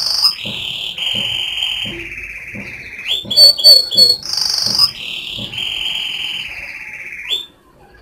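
Domestic canary singing: a long rolling trill held near one pitch, then a few short, loud whistled notes and a higher note in the middle, then another long trill that stops suddenly near the end.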